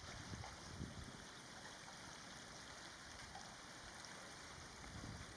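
Faint, steady background noise: an even hiss with some low, uneven rumble, and no bird calls.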